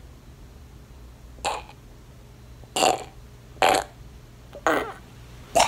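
A man choking and gagging as a hand clamps his throat: five short strangled gasps from the throat, about one a second, the first fainter than the rest.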